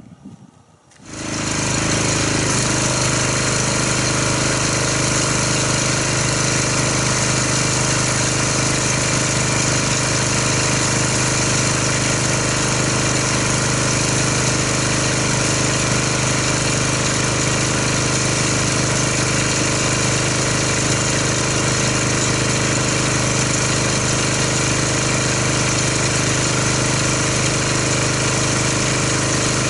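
Pressure washer starting up about a second in and then running steadily.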